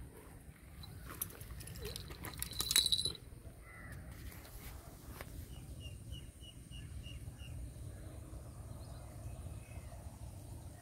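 Outdoor field ambience: a bird gives a run of about seven short, evenly spaced high chirps midway through, over a low steady rumble. A brief burst of clicks with a high call, the loudest moment, comes between two and three seconds in.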